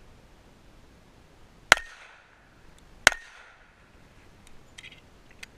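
Two shots from a .45 ACP M1911 pistol firing handloaded rounds, about a second and a half apart, each a sharp crack with a brief ringing tail. A few faint clicks follow near the end.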